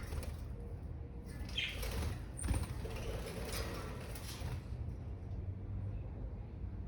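Budgerigars fluttering and rustling for about three seconds, with a short high chirp near the start of it.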